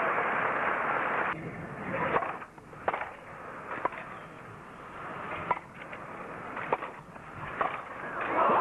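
Crowd applause that cuts off about a second in, then a tennis rally: about six sharp strikes of racket on ball, roughly a second apart. Crowd applause breaks out again near the end as the point is won.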